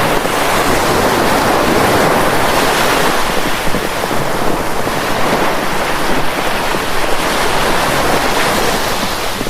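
Steady rushing noise, loud and even, with no distinct calls or strikes.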